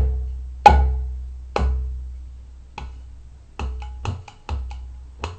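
Mridanga drum playing the combination stroke 'rin': a closed index-finger 'ra' on the small head struck together with a 'ge' bass stroke on the large head, so each sharp click carries a low boom that dies away. Three strong strokes come about a second apart, then a quicker run of lighter strokes.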